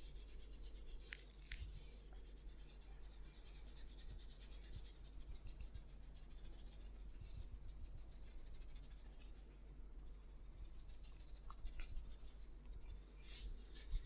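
Hands rubbing and kneading oiled skin and hair during a massage: faint, quick rubbing strokes.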